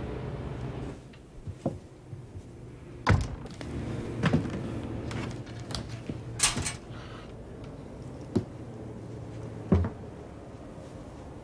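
Thumps, knocks and scuffs of a person climbing in through a window and over the sill, the loudest knock about three seconds in, with a rustling scrape midway and a few more knocks towards the end, over a low steady hum.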